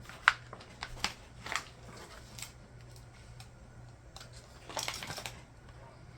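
Small diamond-painting tools being handled and put into a container: several sharp clicks and taps in the first couple of seconds, then a short rustle about five seconds in.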